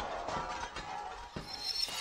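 Logo-sting sound effect of shattering: scattered clinks and tinkles of flying shards over a musical sting, with a couple of short high ringing tones near the end.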